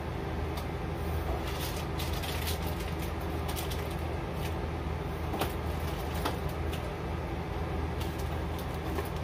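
Hands rummaging in a cardboard box: scattered rustles and crinkles of plastic wrapping and soft knocks against the cardboard, over a steady low hum.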